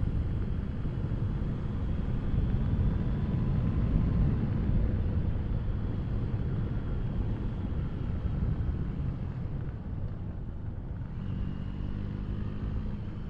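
Motorcycle on the move: engine running under a dense, uneven low rumble of wind on the action camera's microphone, easing a little near the end.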